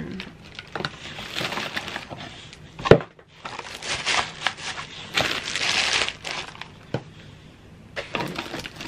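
Clear plastic packaging bags crinkling and rustling as they are handled while the thermal label printer and its cords are unpacked from the box. A single sharp knock about three seconds in.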